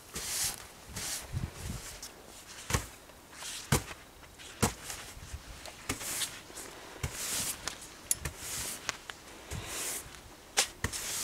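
Footsteps crunching in snow, with a few sharp knocks along the way.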